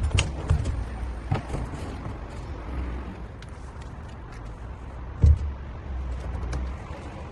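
Scattered knocks and clicks, with one heavier thump about five seconds in, over a steady low rumble.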